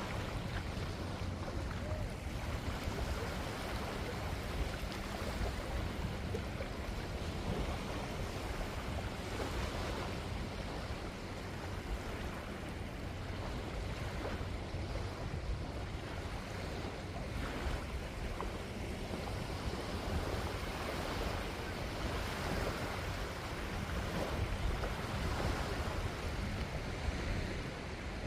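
Waves washing on a beach, a steady surf noise, with wind rumbling on the microphone.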